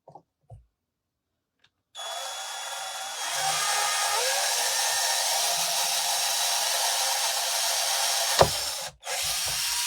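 Power drill boring a pilot hole through a wooden door hanger: the drill starts about two seconds in and runs steadily. Near the end there is a sharp knock, then the drill stops for a moment and starts again.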